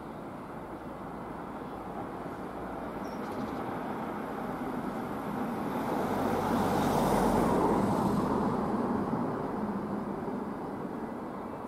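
Class 66 diesel locomotive approaching slowly with a steady low engine rumble that grows to its loudest about seven seconds in and then eases off a little.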